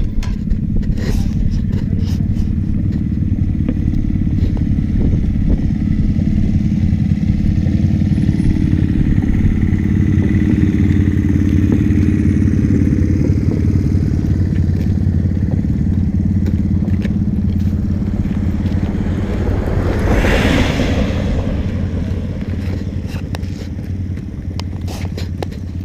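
Motorcycle engine running steadily at cruising speed while riding, with a brief rushing swell about twenty seconds in.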